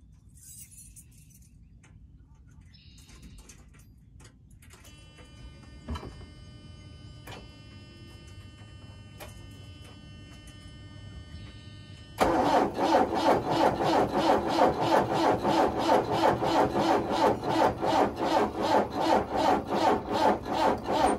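Backhoe's diesel engine being cranked in the cold. A faint steady hum and a few clicks come first. Then about twelve seconds in, the starter suddenly begins turning the engine over in a loud rhythmic chugging, about three beats a second, and it does not settle into running: a hard cold start in about 10 degrees.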